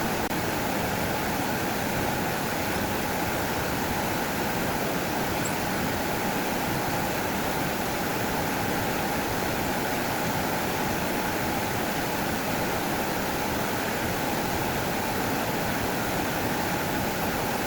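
Steady rushing of flowing water, an even, unbroken wash of noise like a stream or small waterfall.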